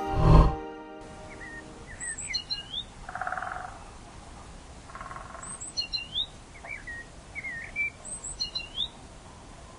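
Wild birds singing. One bird repeats a phrase of high notes that fall in pitch, about every three seconds, with lower whistled notes between. Two short buzzy calls come near the middle, and a music track ends in the first second.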